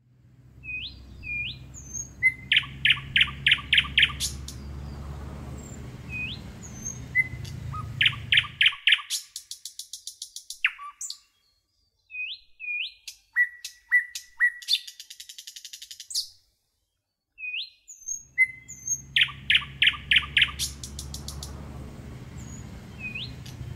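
Palm squirrel's high, bird-like chirping call: short upward-flicking chips and quick runs of about six sharp chips at a time, repeated several times. A low rumbling noise sits underneath for the first third and again in the last quarter.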